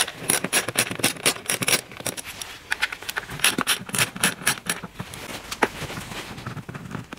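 Hand ratchet clicking in quick runs of sharp ticks as it loosens the bolts holding the plastic engine cover, in two main runs, then a few scattered clicks.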